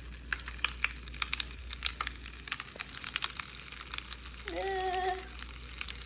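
Bath crackles popping in a tub of water: an irregular run of small, sharp crackles and pops, with a brief hummed voice about four and a half seconds in.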